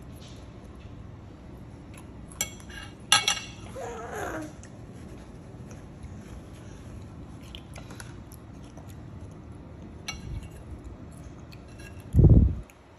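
Metal fork clinking and scraping against a plate, with two sharp clinks about two and a half and three seconds in and fainter ticks later. A short falling vocal sound follows the clinks, and a loud dull thump comes near the end.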